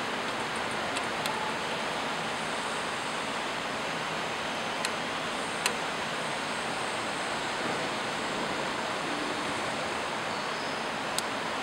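A few sharp metal clicks as a lathe's four-way tool post and a cutting tool bit are handled and set, the loudest about halfway through, over a steady even hiss.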